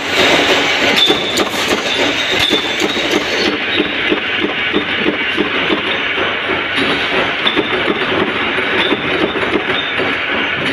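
Flywheel-driven mechanical punch press running and stamping rings out of steel strip, striking in a steady rhythm of about two to three strokes a second over the hum of its motor and flywheel.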